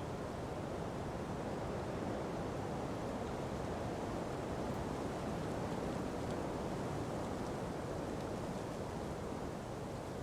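Ocean breeze blowing through palm trees: a soft, steady rush of wind that swells a little in the middle.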